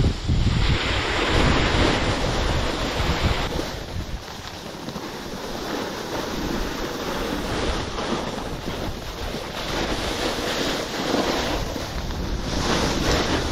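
Wind buffeting the microphone while skiing downhill, over the steady hiss of skis sliding on snow. The low buffeting eases about four seconds in and builds again near the end.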